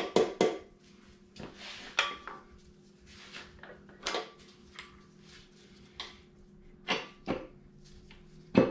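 Metal engine parts clanking and clicking as a connecting-rod cap and bearing are handled and fitted onto the crankshaft in a bare engine block: a handful of sharp knocks spread over several seconds, loudest at the start and near the end. A faint steady hum runs underneath.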